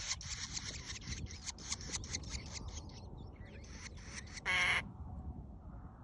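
Grey shrike nestlings give rapid, high, scratchy begging calls that die away about three seconds in. Then, about four and a half seconds in, the adult grey shrike gives one short, loud, harsh warning call, and the chicks fall still.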